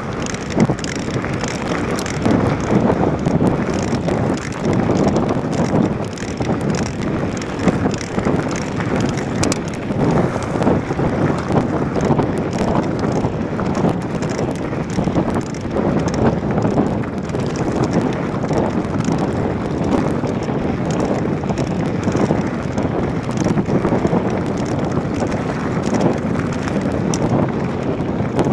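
Wind buffeting the camera microphone over the crunch and rattle of a mountain bike's tyres rolling fast down a loose gravel track, with constant small clicks and knocks.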